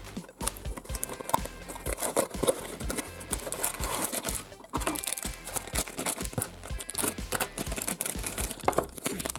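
Crinkling and crackling of a cardboard candy box being opened and its plastic wrappers handled, with a pink foil toy bag torn open near the end, over background music.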